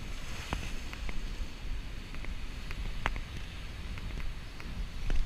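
Strong wind buffeting the microphone over the steady wash of breaking surf, with a scattering of sharp clicks.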